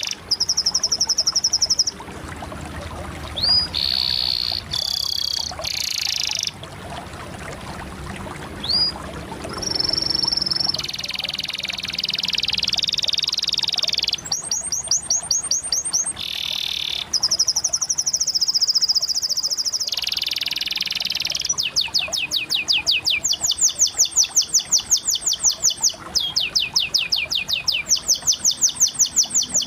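Canary song: a string of high whistled phrases and rolling trills, each phrase different from the one before. About two-thirds of the way in it turns to long runs of rapid repeated notes, roughly ten a second.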